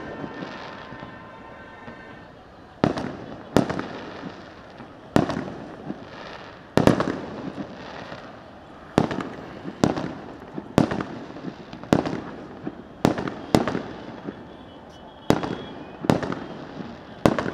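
Aerial fireworks shells bursting over a city, a quieter spell at first, then a dozen or more sharp bangs about every second, each followed by a rolling echo.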